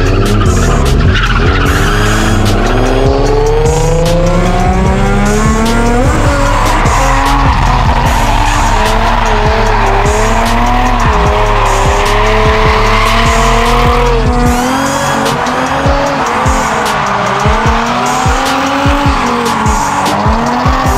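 Nissan Z drift cars sliding in tandem. Their V6 engines are held at high revs, climbing steadily in pitch over the first several seconds and then rising and falling with the throttle, over a continuous hiss of tyres squealing.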